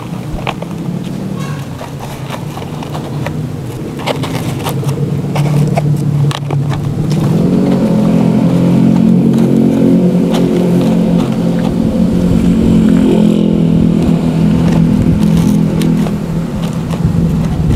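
An engine running steadily, growing louder over the first eight seconds or so and then holding, with scattered light clicks.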